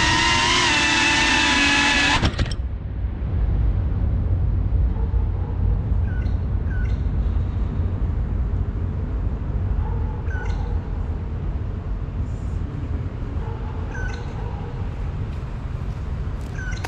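FPV drone's motors whining, their pitch wavering, then cutting off abruptly about two seconds in. A low steady rumble follows, with a few short high chirps.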